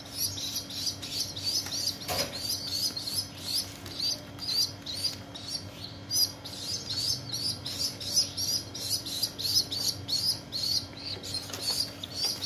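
Ten-day-old domestic pigeon squabs giving rapid, high-pitched begging peeps, several a second without pause, as they are hand-fed.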